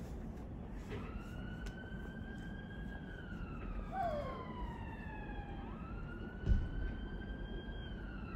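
Emergency-vehicle siren wailing: a slow rising-and-falling tone that starts about a second in and sweeps up and down twice. A steady low outdoor rumble lies under it, and a single brief thump comes about six and a half seconds in.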